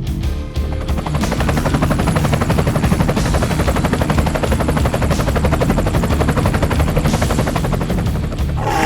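A rapid rattling sound effect, many strokes a second in an even run, over a low rumble and background music.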